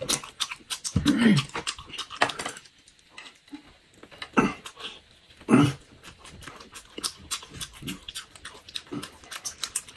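Close-miked eating: chewing and lip smacking on grilled skewered meat, a run of small wet clicks and crunches, with a few short wordless vocal sounds from the eaters.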